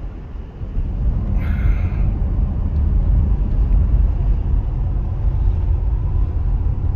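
Steady low road and engine rumble heard inside a moving car's cabin, with one brief higher-pitched sound about a second and a half in.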